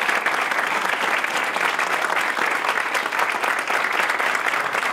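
Audience applauding, a steady, dense clapping of many hands.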